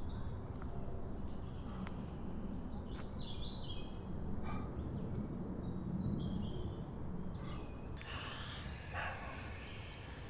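Woodland ambience: birds chirping over a steady low rumble, with a few faint clicks. Near the end come two short noisy bursts about a second apart.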